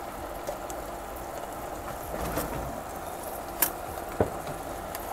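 Tuna, tomato and onion in a watery broth simmering in a non-stick wok, a steady bubbling sizzle. Two sharp clicks about half a second apart late on.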